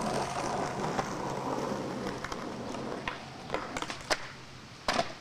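Skateboard wheels rolling over a rough concrete deck, then several sharp clacks and knocks as the board hits a concrete planter ledge, the loudest a double knock near the end.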